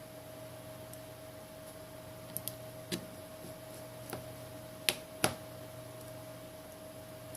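Six light clicks and taps from small phone parts being handled and fitted during reassembly, the two loudest about five seconds in, over a steady faint electrical hum.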